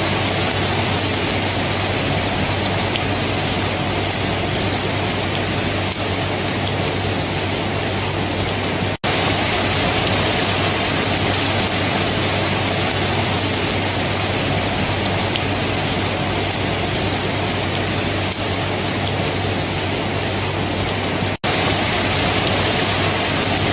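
Steady heavy rain, a dense even hiss of falling water. It cuts out for an instant twice, about nine seconds in and again near the end.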